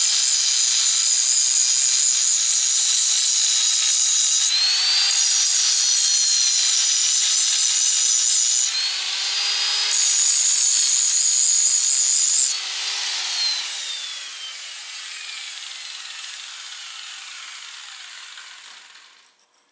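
Angle grinder grinding down a weld on an ATV axle nut: loud abrasive grinding over a steady motor whine, which rises in pitch twice where the disc briefly comes off the metal. About two-thirds of the way through it is switched off and the whine falls away as the disc spins down.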